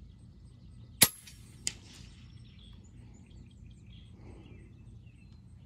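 A single shot from a PCP air rifle (FX Impact MK2): one sharp crack about a second in, followed about two-thirds of a second later by a fainter knock.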